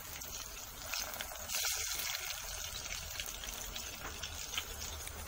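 Green plantain vadas deep-frying in hot oil: a steady sizzle with small crackles, swelling a little about a second and a half in.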